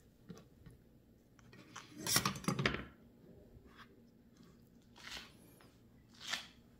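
Split lobster tail shells crackling and scraping on a plastic cutting board as the halves are handled and the meat is lifted from the shell: a dense run of crackles about two seconds in, then two shorter ones near the end.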